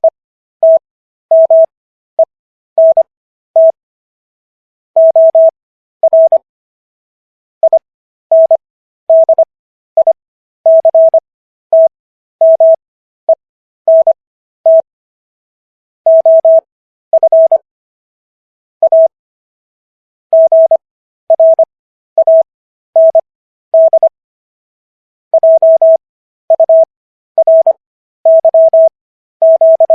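Morse code sent as a single steady beep tone keyed in dots and dashes: characters at 25 words per minute, spread out with Farnsworth spacing to an overall 15 words per minute, so the quick letters are separated by longer gaps.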